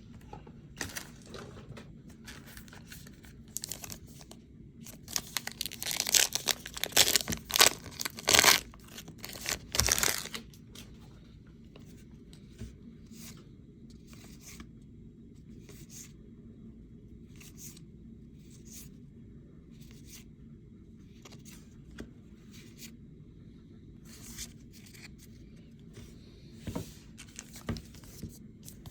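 A trading-card pack wrapper being torn open and crinkled, loudest about five to ten seconds in, followed by soft scattered clicks and flicks of cards being handled and flipped through.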